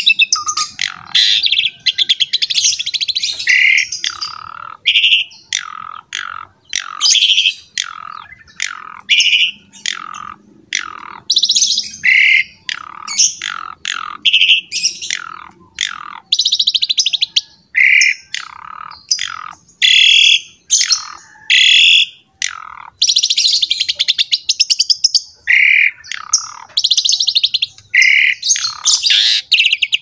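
Javan pied starling (jalak suren) singing loudly and almost without pause, a fast medley of short whistles, chirps and slurred notes broken by stretches of harsh, rasping chatter.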